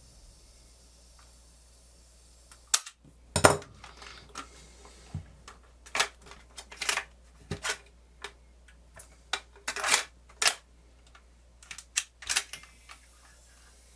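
Irregular sharp clicks and knocks from handling the opened RCA cassette player, starting about three seconds in and coming at uneven intervals.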